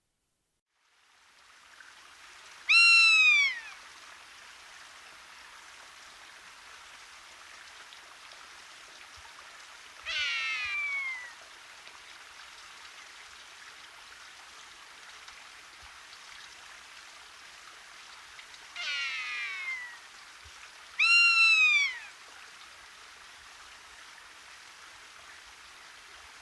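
Rough-legged buzzard giving drawn-out, downslurred mewing calls, four in all and several seconds apart; the first and last are the loudest. A steady faint hiss runs underneath.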